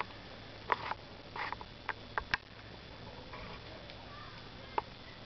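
A few faint, short crunches and clicks of deep fresh snow being stepped or pressed, scattered irregularly.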